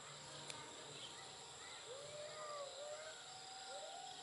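Faint drawn-out calls that slide in pitch: one about two seconds in and a shorter one near the end, over a steady high-pitched hum.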